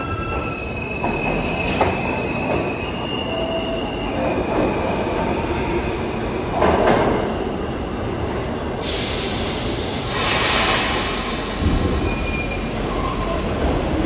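New York City subway train running on the rails, its steel wheels squealing in several drawn-out high tones over the rumble of the cars, then settling into a steady hissing run.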